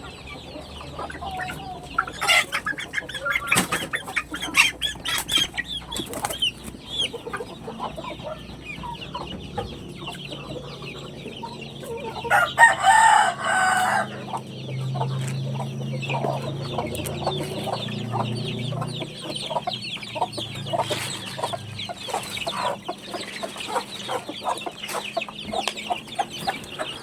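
Backyard chickens clucking steadily while being fed, with a rooster crowing once, loudly, about halfway through.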